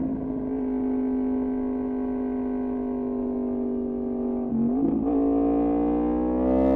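Yamaha MT-10's crossplane inline-four running through an Austin Racing exhaust at steady, slowly falling revs. The pitch breaks briefly about four and a half seconds in, then the revs climb near the end.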